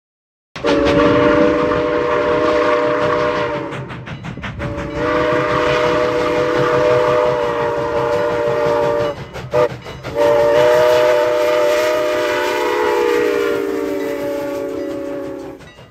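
Steam whistle of Strasburg Rail Road No. 89, a 1910 2-6-0 steam locomotive, sounding a chord of several notes in two long blasts, a short toot, then a final long blast: the long–long–short–long grade-crossing signal. The train's running rumble is heard under it.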